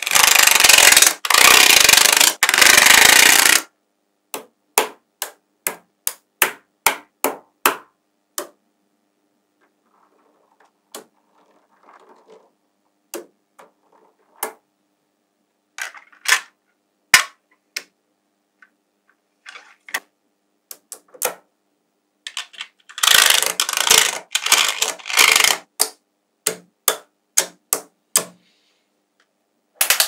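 Small neodymium magnet balls clicking and snapping together as rows of them are laid onto a magnet-ball build. A loud rapid clatter opens and returns for several seconds near the end, with single sharp clicks, about two a second, and sparser clicks in between.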